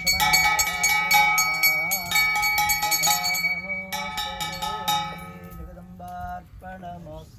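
Temple bells ringing with rapid, continuous strikes that thin out and fade over the second half, over a steady low drone and a wavering melodic line.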